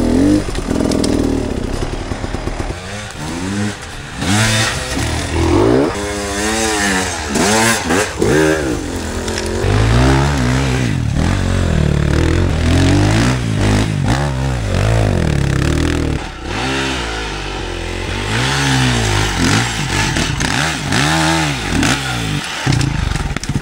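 Enduro dirt bike engine revving up and down over and over as the throttle is opened and shut in quick bursts, with a few knocks and clatter from the bike.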